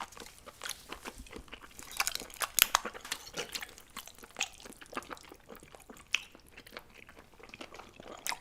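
Close-miked chewing of chewy octopus: a run of quick, wet clicks and smacks from the mouth.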